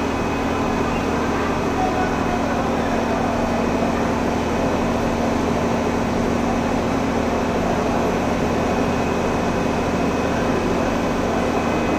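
Fire engine running at a steady hum, with voices murmuring under it.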